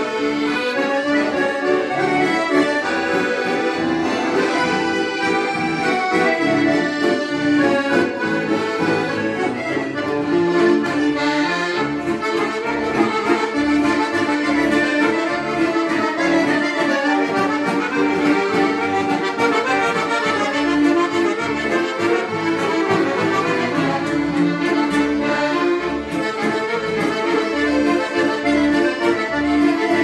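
Several piano accordions playing a tune together in ensemble, with a steady pulse of bass notes and chords underneath.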